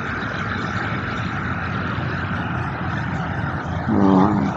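Steady outdoor background noise with no clear single source, and a brief low pitched sound about four seconds in, the loudest thing here.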